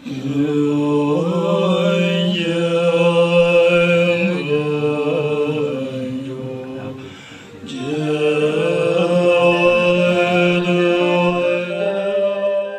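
Tibetan Buddhist monks chanting together in long held notes. There are two long phrases, with a break for breath about seven seconds in.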